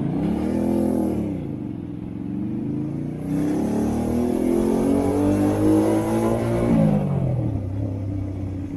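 Honda Shadow 125's small V-twin engine pulling away: a short rise and fall in revs in the first two seconds, then a longer steady climb in pitch from about three seconds in that drops sharply near seven seconds before running on at lower revs.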